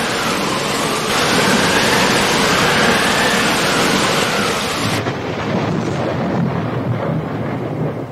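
Heavy wind rumble on the microphone over rough, splashing sea water, with a jet ski's engine whine faintly rising and falling in pitch as it speeds and turns. About five seconds in the sound turns duller.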